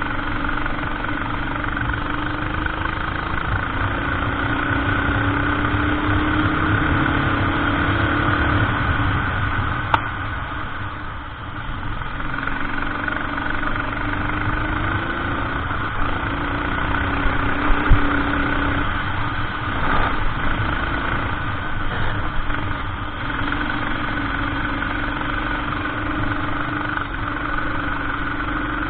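Kart engine running under racing load, its pitch climbing and falling again and again as the throttle opens and closes through the laps, with a dip in loudness about eleven seconds in. A couple of short sharp knocks are heard along the way.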